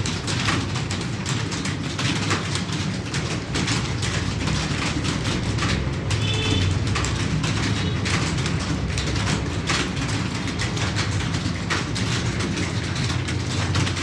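Rapid, continuous typing on a computer keyboard, key clicks coming many times a second over a steady low hum.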